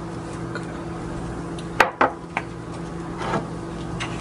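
Spoon and spice-jar clicks against the aluminium pressure-cooker pot while chilli powder is spooned in: two sharp clicks about two seconds in, then a few lighter taps, over a steady low hum.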